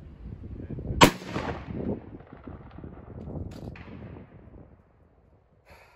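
A black-powder musket fires once about a second in: a single loud shot followed by a long echoing tail that fades over the next second or two.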